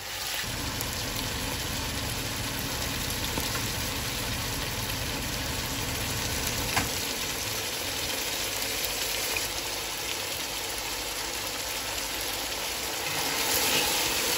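Chicken pieces frying with garlic-ginger paste in hot oil in a pot, a steady sizzle. A low hum runs under it for about the first half, and there is a single sharp tap about seven seconds in. Near the end the pieces are stirred with a spatula and the sizzle grows louder.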